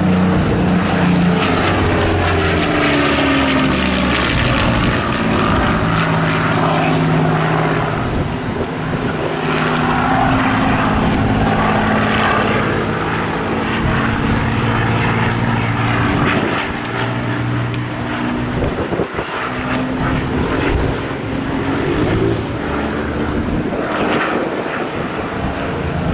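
Supermarine Spitfire flying overhead, its V12 piston engine and propeller running continuously, the engine note falling and rising in pitch as the aircraft passes and turns.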